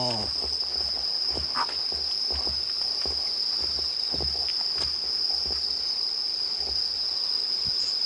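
Crickets or similar night insects chirring in one steady, unbroken high-pitched drone, with soft irregular footsteps of people walking on a paved path.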